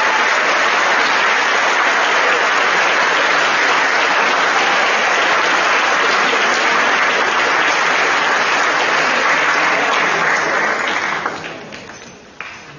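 Audience applauding steadily in a large hall, dying away about eleven seconds in, followed by a few knocks.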